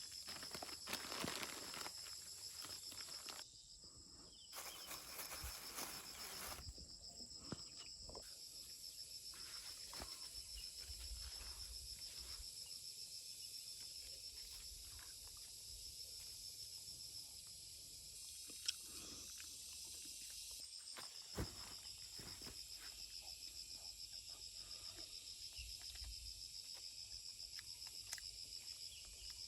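A steady chorus of insects chirring, a high pulsing buzz that breaks off briefly about four seconds in, with scattered faint rustles and clicks.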